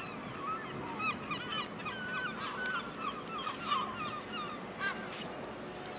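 Gulls calling in a quick flurry of short, yelping cries, busiest in the middle and trailing off near the end, over the steady low hum of a tugboat's engine.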